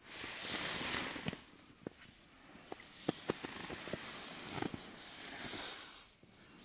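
Wind hissing in two gusts, with a scatter of sharp, irregular clicks and cracks between them.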